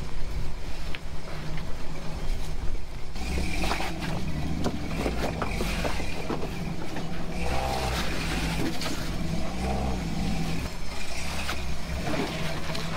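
Toyota FJ40 Land Cruiser's engine running at low revs as the truck crawls over trail rocks, with tyres crunching on loose stone and scattered knocks of rock against the truck, busier from about three seconds in.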